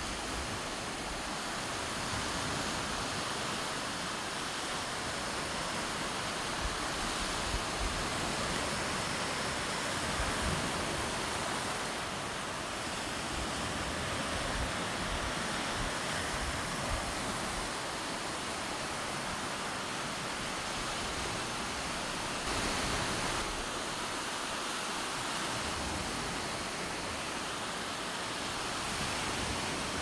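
Low surf on a sandy beach: small waves breaking and washing up the shore in a steady hiss that swells and eases a little.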